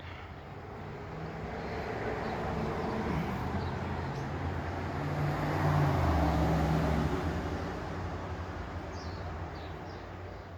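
A motor vehicle passing by, its engine and road noise swelling to a peak about six seconds in and then fading away.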